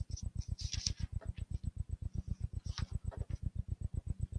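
Soft paper rustles of Bible pages being leafed through, a few short ones, over a steady low electrical hum that pulses about ten times a second.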